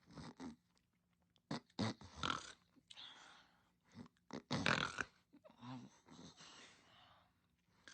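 Snoring and snorting breaths of a sleeping pet, coming in irregular bursts with short pauses between them.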